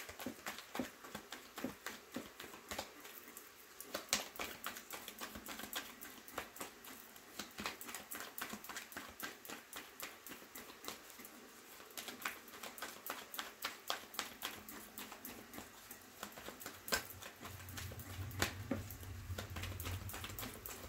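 Tarot deck being shuffled by hand: a long run of quick, irregular card clicks and flutters.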